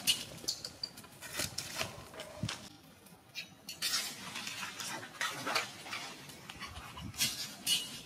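Dry leaves crackling and scraping on concrete as macaques scuffle over them, a run of irregular sharp clicks and rustles, with a couple of brief high squeaks near the start.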